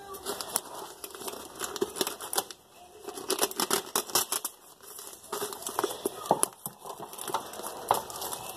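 The plastic wrapping of a whole raw turkey crinkling and crackling as it is cut and pulled open with a kitchen knife, in an irregular run of small clicks and rustles with a couple of short pauses.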